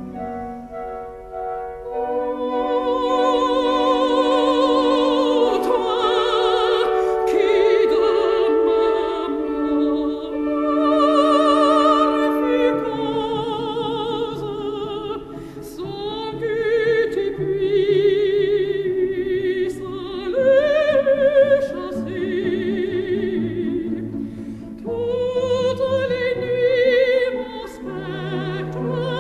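Background music: operatic singing with a strong vibrato over classical orchestral accompaniment, the voice holding long notes.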